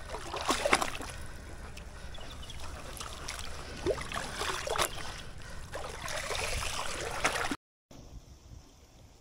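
Seawater sloshing and trickling through a metal colander of freshly caught sardines as it is dipped and rinsed in the shallows, in uneven swells with small splashes. About seven and a half seconds in it cuts off, leaving only a faint steady hiss.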